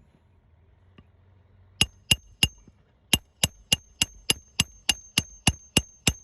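Hand hammer driving a roofing nail through asphalt shingles: three blows, a short pause, then a quick run of about eleven evenly spaced blows, roughly three a second, each with a bright metallic ring.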